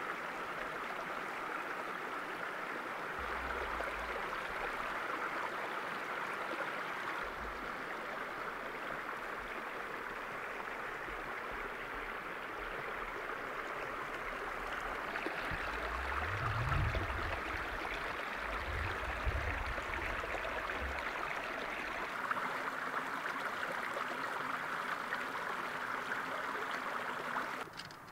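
Steady rush of a small brook running over rocks. Partway through, a low rumble swells twice.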